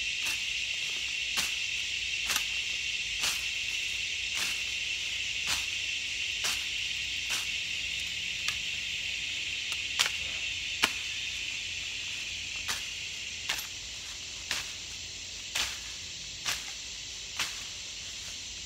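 A hand-swung cane cutter chopping through tall grass and weeds in sharp strikes about once a second, with two harder strikes a little past the middle and a short pause after them. Behind it, a steady high chorus of insects, fading slightly near the end.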